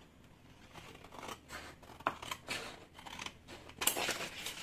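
Large scissors cutting through a sheet of stiff brown kraft paper, a run of irregular crisp snips along a straight line, the sharpest of them near the end.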